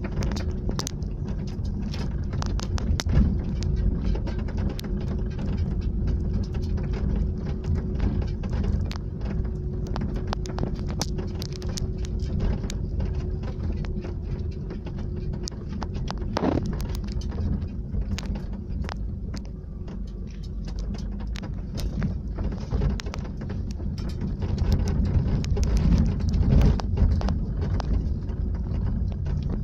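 Car driving slowly over a rutted sandy dirt track, heard from inside the cabin: a steady low rumble of engine and tyres with many small knocks and rattles as it goes over the bumps. A faint steady hum fades out about halfway through.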